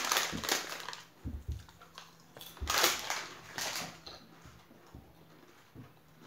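Plastic crisp packet crinkling as it is handled and crushed, in two bursts (at the start and again around three seconds in), with a few dull knocks between.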